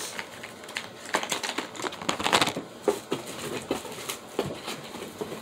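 Irregular light clicks, taps and rustling of small plastic and cardboard makeup packaging being handled and set down, with the next product picked up.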